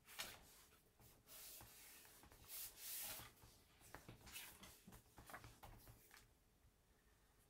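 Faint rustling and sliding of cardstock sheets being handled and moved across a craft mat, with a few light taps, over about the first six seconds.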